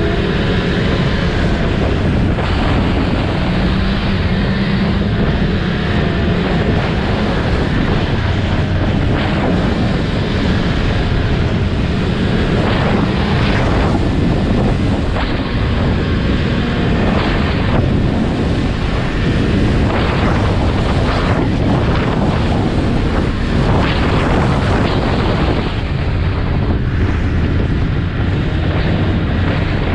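Snowmobile engine running steadily at travelling speed, with wind buffeting the microphone.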